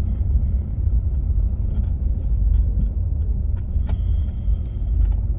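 Low, steady rumble of a car driving, heard from inside the cabin, with a single click and a brief faint high beep about four seconds in.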